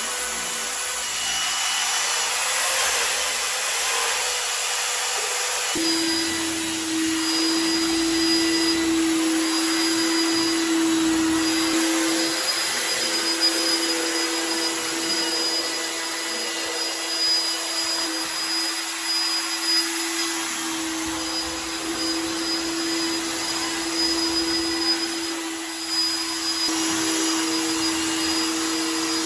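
Upholstery-cleaning machines running steadily on a fabric sofa: the motor of a vacuum extraction unit and a handheld rotary scrubbing machine. A steady hum joins in about six seconds in and runs on.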